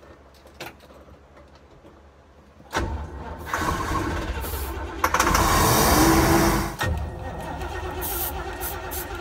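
1965 Clark Cortez motorhome's engine being started on starter fluid: the starter and engine come in suddenly about three seconds in and run loudly, easing off a little near the end.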